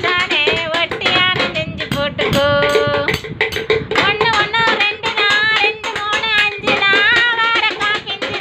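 Sticks beating a rapid rhythm on empty tin cans used as makeshift drums, played along with a song that has singing and a melody line.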